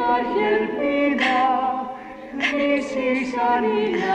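Choir singing slow, held notes in the film's score.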